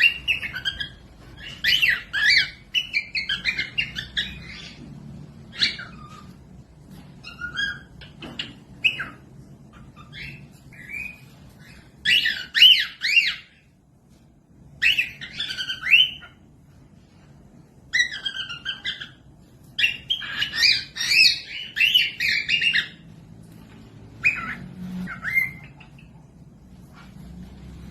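Cockatiels calling in bursts of quick chirps and squawks, with short pauses between the bursts.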